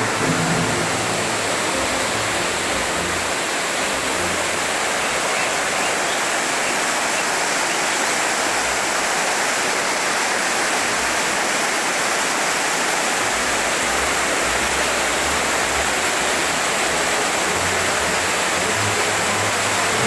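Rushing white water of river rapids: a steady, unbroken wash of water noise.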